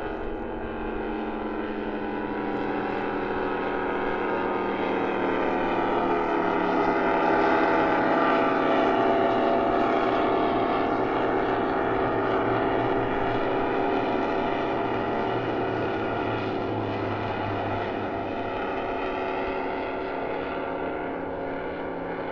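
Offshore racing powerboat's engines passing by: a steady motor drone that grows louder to a peak about a third of the way through, then slowly fades.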